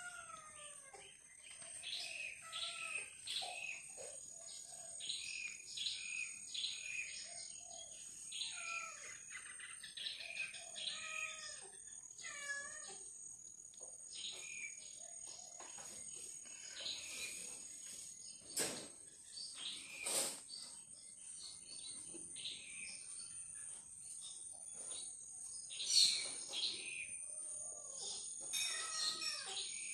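Outdoor birds chirping in quick repeated phrases over a steady high-pitched buzz, with a couple of warbling calls and two sharp clicks about two-thirds of the way through.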